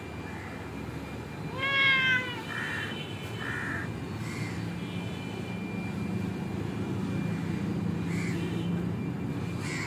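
Domestic cat meowing: one loud meow about two seconds in, its pitch rising then falling, followed by a few shorter, fainter sounds. A low steady drone builds in the background through the second half.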